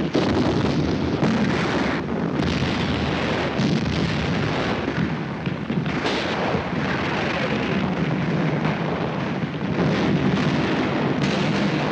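Continuous battle din of gunfire and artillery fire, many shots and blasts running together with no pause.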